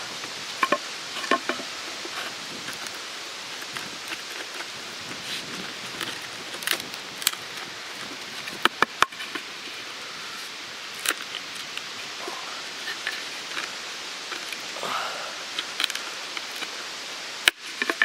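Irregular clicks, knocks and scraping from a fixed-blade knife (Cold Steel SRK San Mai III) cutting and prying a hole through wood, severing the fibers as it goes. A steady hiss runs underneath.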